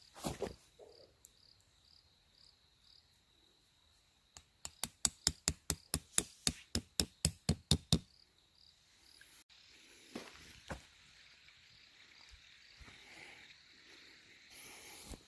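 A quick, even run of sharp knocks, about five a second, lasting some three and a half seconds midway, like rapid hammering on wood. Crickets chirp steadily underneath.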